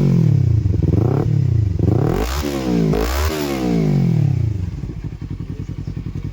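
Kawasaki Ninja 300's parallel-twin engine revved through an Akrapovic carbon-finish slip-on exhaust: several quick throttle blips, each rising and falling back, then settling to idle near the end.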